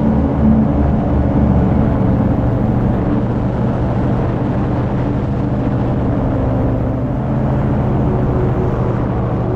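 Paramotor engine and propeller running steadily in level flight: a loud, even drone.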